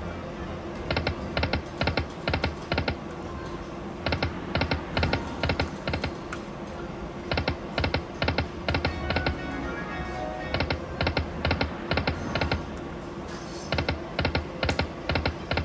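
Slot machine ticking as its reels spin and stop: runs of about eight quick electronic clicks, about four a second, a fresh run roughly every three seconds, over steady casino background music.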